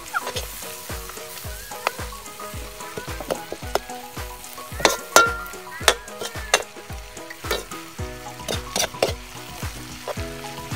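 Kangkong (water spinach) sizzling as it is sautéed in a metal wok, stirred with a metal ladle that clinks and scrapes sharply against the pan many times.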